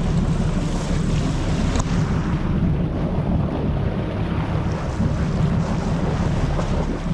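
Wind buffeting the microphone over water rushing past the hull of a sportfishing boat under way on open sea: a steady low rumble.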